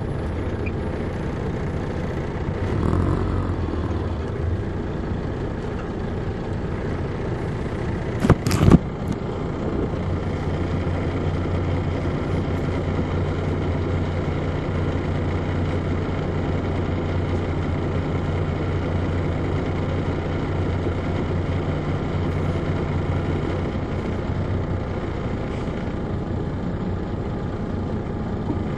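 Inside a transit coach near the back, its Detroit Diesel Series 60 inline-six diesel running with a steady hum. A short, sharp loud noise cuts in about eight seconds in.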